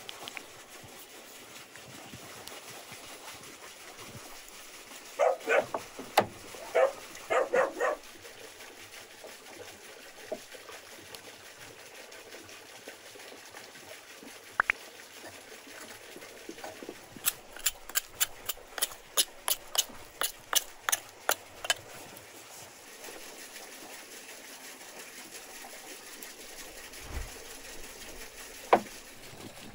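A dog barks several times in quick succession, about five to eight seconds in. Later comes a run of about a dozen sharp, evenly spaced clicks lasting some five seconds, and a single loud knock near the end.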